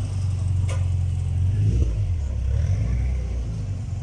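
Car engine running with a low, pulsing rumble, and a single sharp click a little under a second in.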